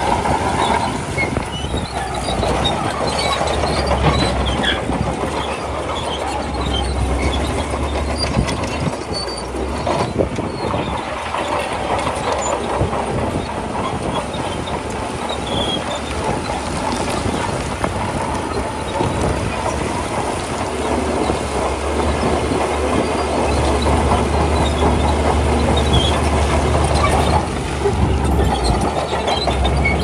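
Shantui crawler bulldozer's diesel engine working under load, its low drone swelling and easing, with steel tracks and pushed stone giving a steady clatter of clanks and rattles.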